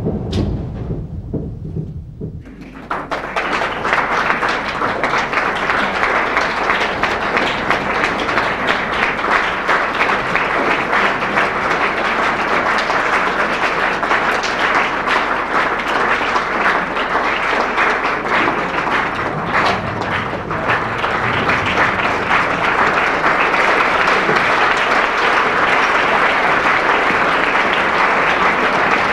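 A low boom fades out in the first two seconds. Then a theatre audience breaks into applause about two and a half seconds in, steady, dense clapping that carries on throughout.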